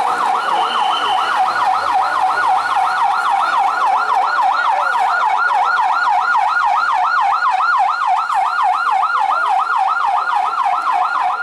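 Fire engine's siren sounding a fast yelp, rising and falling about four times a second.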